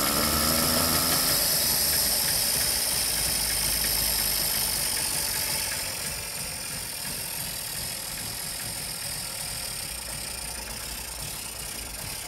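1974 Syrena 105's three-cylinder two-stroke engine idling, running again after several years laid up. It gets quieter from about halfway through.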